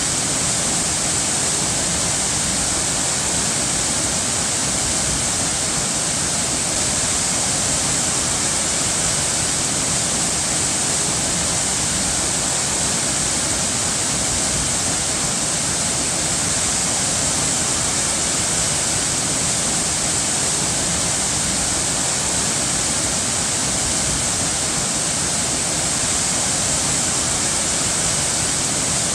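Running water rushing steadily, an even, unbroken hiss with no separate splashes or drops standing out.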